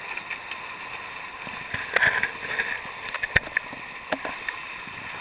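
Nacra 580 catamaran under sail: water rushing along the hull with a steady hiss. There is a louder rush about two seconds in, then several sharp clicks and knocks.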